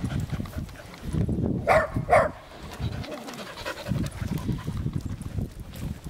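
A dog barks twice in quick succession about two seconds in, over low rumbling handling noise from the moving camera.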